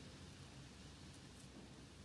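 Near silence: low room hum with a couple of faint clicks.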